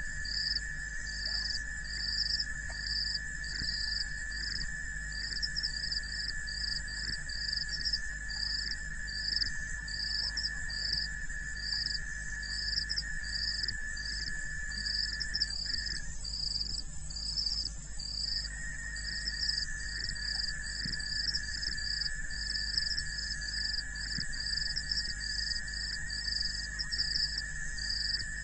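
Chorus of calling wild animals: a steady high-pitched trill with a higher chirp repeating about twice a second over it. The trill drops out briefly a little past the middle and then resumes.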